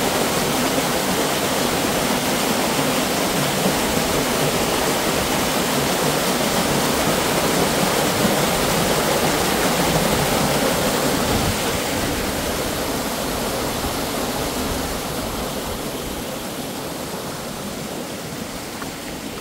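Waterfall rushing, a steady, dense roar of falling water that grows gradually quieter over the last several seconds.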